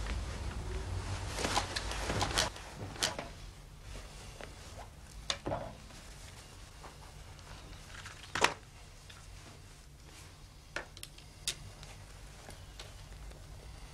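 Drama soundtrack of a quiet office room: papers and folders handled at a table, with scattered small clicks and rustles over a faint steady background hiss.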